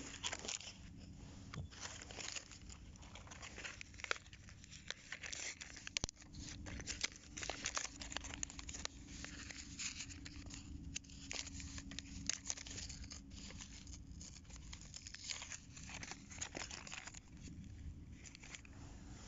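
Plastic lure packaging being torn open and crinkled by hand: a faint, irregular run of crackles and clicks.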